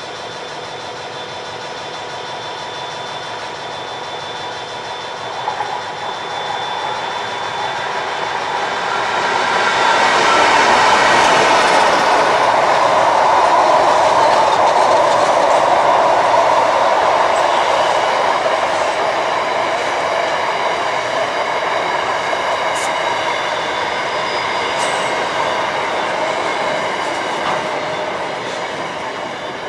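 A train rolling past: the rumble builds to its loudest about ten seconds in, holds for several seconds, then slowly fades.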